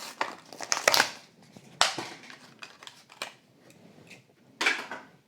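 Plastic blister pack and cardboard card of a Hot Wheels car being cracked and torn open: a run of irregular sharp crackles and snaps, the loudest about a second in, just before two seconds in and near the end.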